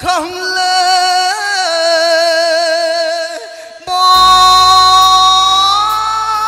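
Live Cambodian ork kadong dance music. A male singer holds one long, wavering note for about three seconds. After a short break, the band comes back in with a high, steady sustained instrument note over a deep bass, and the note steps up in pitch near the end.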